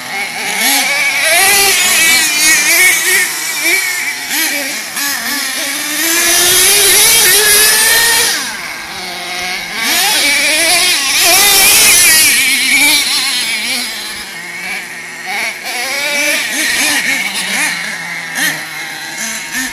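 Small nitro glow engines of RC monster trucks revving up and down as they are driven, a high buzzing whine that keeps rising and falling in pitch. It is loudest in two spells, about six and eleven seconds in.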